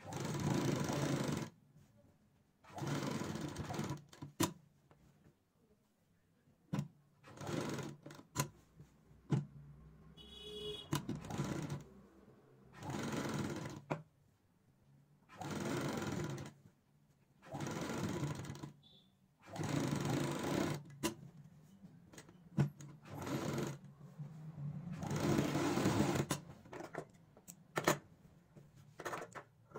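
Domestic sewing machine stitching fabric strips onto a garment panel in short runs of one to two seconds, stopping and starting about a dozen times. A few sharp clicks come near the end.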